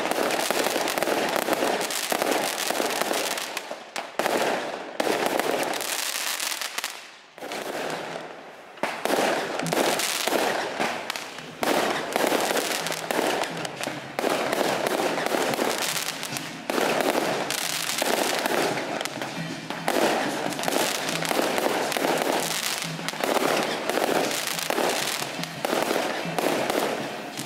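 Fireworks going off in a dense, rapid barrage of bangs and crackles, with a short lull about seven seconds in.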